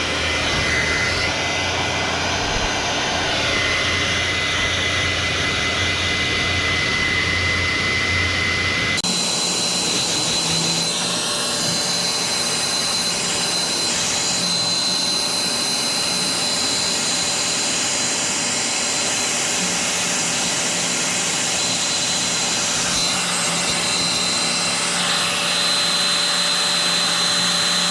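Handheld hair dryer blowing steadily with a thin high whine, drying freshly applied exhaust bandage so it cures faster. About nine seconds in the sound changes abruptly and the whine jumps higher.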